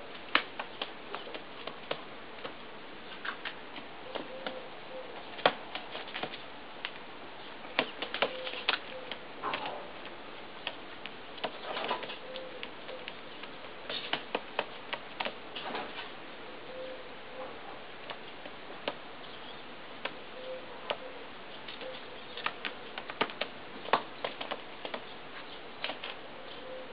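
A pigeon pecking grain, its beak tapping in irregular sharp clicks, some in quick runs.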